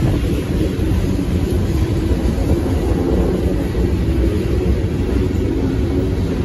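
Freight train rolling past: a steady, loud low rumble of the cars on the rails.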